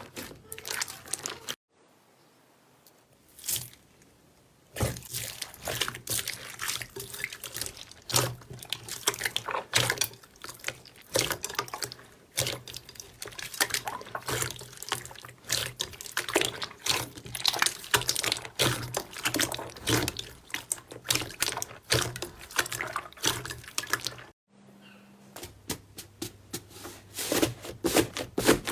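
Slime being squeezed and kneaded by hand: dense wet squelching, popping and clicking. It goes nearly quiet for a few seconds near the start, apart from one click, and pauses briefly near the end.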